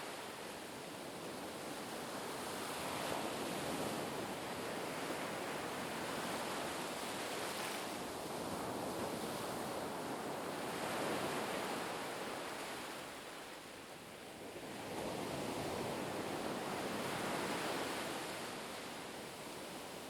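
Sea waves surging and washing in, a steady rushing that swells and ebbs every few seconds, with a quieter lull about two-thirds of the way through before the next wave builds.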